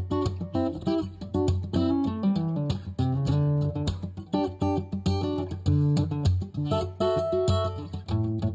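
Background music: a guitar picking a melody, one plucked note after another.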